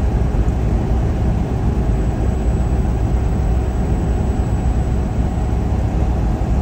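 Steady low rumble inside a semi-truck's cab at highway cruising speed: engine drone mixed with tyre and road noise, unchanging throughout.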